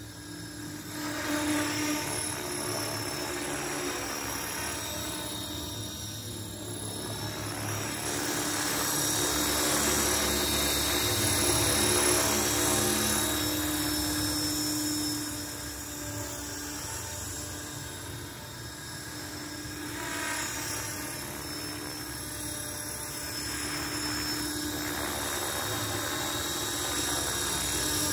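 T-Rex 450 V2 electric radio-controlled helicopter hovering: the steady high whine of its motor and the whir of its rotor blades, getting louder and softer as it moves about.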